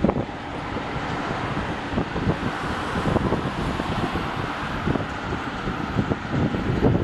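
Wind buffeting the camera microphone in irregular gusts over a steady hiss of distant jet engines from a taxiing Boeing 777.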